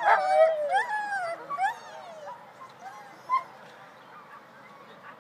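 Dogs whining and yelping in high, sliding cries, loudest in the first two seconds, then fading to a single short yelp a little over three seconds in.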